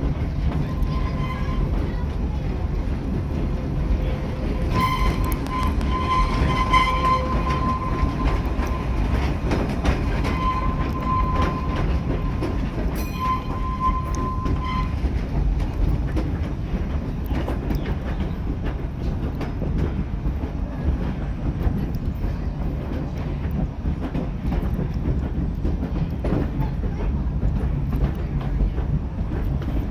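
Steady running rumble and rail clatter of a small park railroad's passenger coach, drawn by a steam locomotive, heard from on board. A thin high tone comes and goes during the first half.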